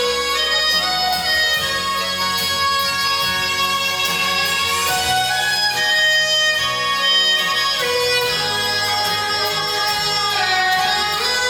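Instrumental music with sustained melody notes, no voice.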